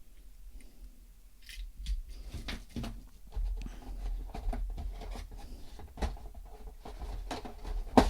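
Handling noise of small plastic parts and packaging: scattered clicks, taps and rustling, with one sharper click near the end.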